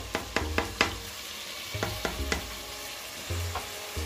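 A spoon stirring thick daleem in a pot, scraping and knocking against the pot in a run of short clicks, then a few more after a pause.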